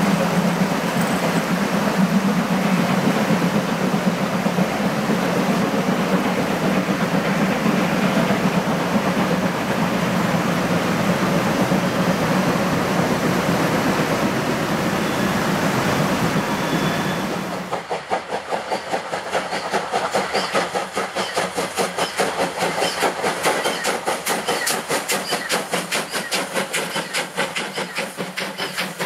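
Two German 2-10-0 steam locomotives, DR classes 52 and 50, double-heading a passenger train up a steady gradient. First comes a steady distant rumble as the train works past. About two-thirds of the way in it gives way to the close, rapid, even beat of the exhaust chuffs as the engines work hard.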